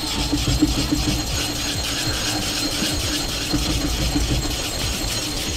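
An Atoma diamond plate scraping back and forth over a wet sharpening waterstone in steady strokes. It is dressing the stone: scrubbing out loose steel that has clogged the surface and truing a stone that is not quite flat.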